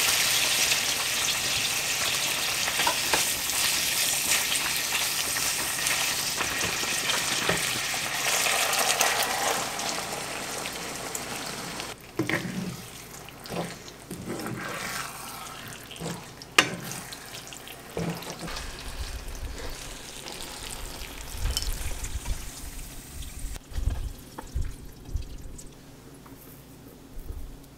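Sliced beef brisket and leeks sizzling and being stirred in a frying pan, a loud steady hiss. About twelve seconds in the sizzle drops away, leaving scattered clicks and knocks of utensils and dull low thumps.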